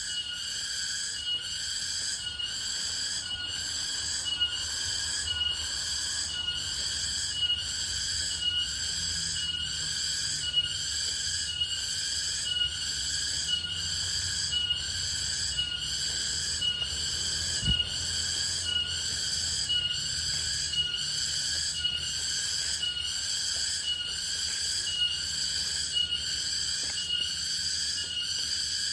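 A repeated high-pitched pulsing call, about three pulses every two seconds, going on steadily without a break.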